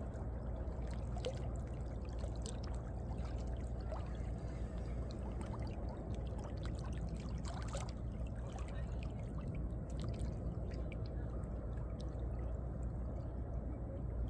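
Small sea waves lapping and sloshing in the gaps between coastal rocks: a steady wash of water with scattered small splashes and drips.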